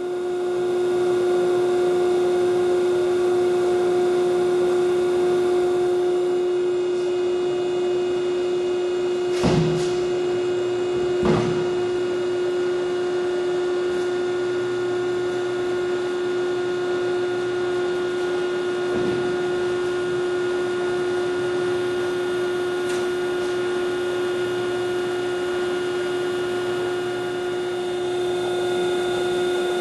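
Carell 305HV CNC section bending machine running with a steady motor hum, one strong constant tone over a noise floor. Two short knocks come about a third of the way in.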